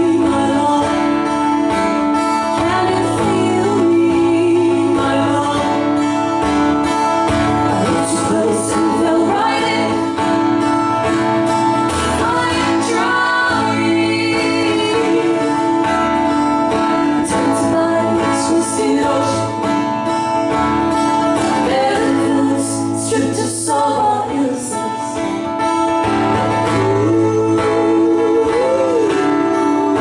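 Two acoustic guitars strummed together under women's voices singing a song, played live.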